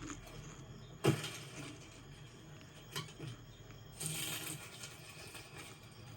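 Animated-film sound effects: scattered small taps and clicks, a sharper knock about a second in and another near three seconds, and a short rustling hiss at about four seconds.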